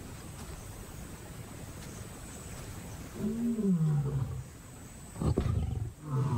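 Lions growling: a low growl falling in pitch about three seconds in, a short harsh snarl a couple of seconds later, and another growl starting near the end.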